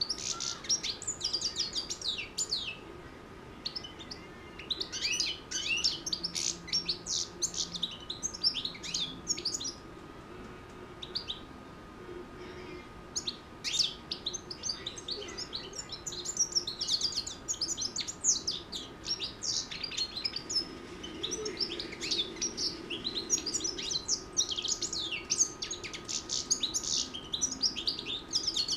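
A six-month-old caged European goldfinch singing in fast twittering phrases, broken by short pauses of a second or two. A faint steady high whine runs underneath.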